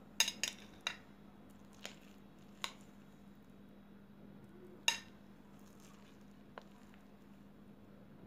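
Kitchen utensils clinking and tapping against dishes: several sharp clinks in the first three seconds and one more about five seconds in, over a faint steady hum.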